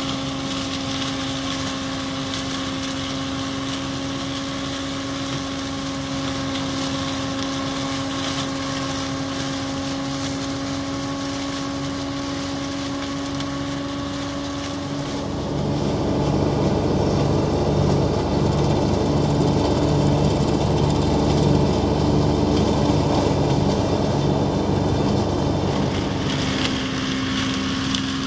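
Yanmar FX215 compact tractor's diesel engine and its PTO-driven flail mower running steadily under load, chopping standing corn stalks. About halfway through, the sound grows louder and rougher with a low throb, then eases near the end.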